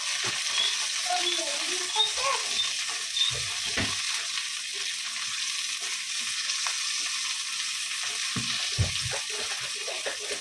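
Garlic cloves and green chillies sizzling steadily in hot oil in a stainless steel kadai as they are stirred with a plastic slotted spoon, with a few dull knocks from the stirring.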